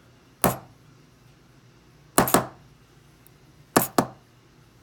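Sharp metallic taps of a gutted lock's parts being knocked against a hard surface while its pin stacks and springs are worked out: one tap, then two quick pairs.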